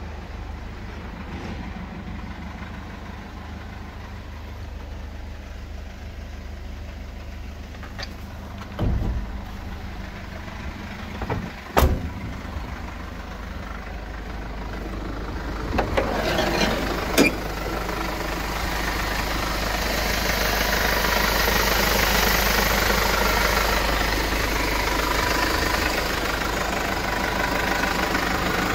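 Mercedes Sprinter 314 CDI's four-cylinder diesel idling steadily. A few thumps and sharp knocks come partway through, and for the last third the engine is louder and clearer, with the bonnet open.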